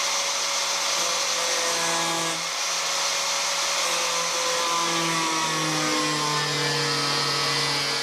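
Corded power grinder running steadily as it grinds away a lip of sheet metal inside the wheel arch so the tyre no longer rubs. Its motor pitch shifts slightly as it bears on the metal.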